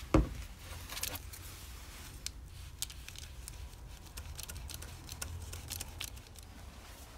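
A wooden craft stick stirring two-part 5-minute epoxy on crumpled aluminium foil, giving scattered light scrapes and crinkly ticks from the foil. A single thump just after the start is the loudest sound.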